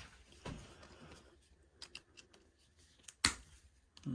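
Steel pliers clicking and tapping against a small metal pocketknife as they take hold of it to pull out a pin: a few light ticks, with one sharp click about three seconds in.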